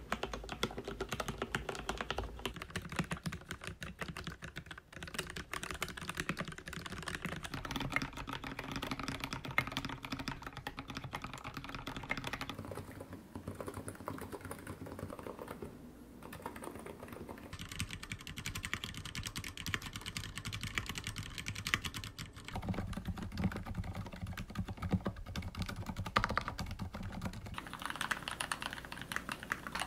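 Steady typing on a series of keyboards, the sound of the keystrokes changing every few seconds as one keyboard gives way to the next. The keyboards include an ABKO AR96 with lubed Cherry MX Black linear switches, a Hansung GK868B Tico with stock NIZ EC 50g electro-capacitive switches, and an archon FX 1 with lubed Cherry MX Black switches.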